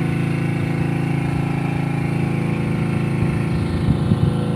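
Small engine on board a fishing boat running steadily at an even pitch, with a few low knocks about three to four seconds in.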